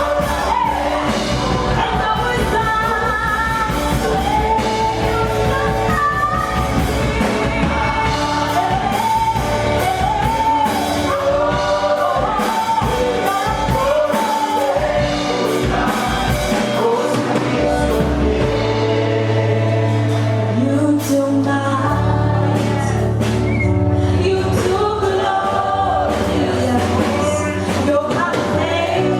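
Worship music: singers with a band, sung melody over sustained bass notes and a steady beat.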